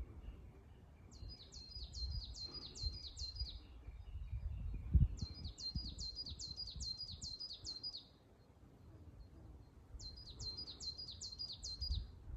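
Coal tit singing three phrases, each a quick series of repeated high two-note units lasting about two to three seconds, with pauses between. A low rumble with a few knocks runs underneath, loudest about five seconds in.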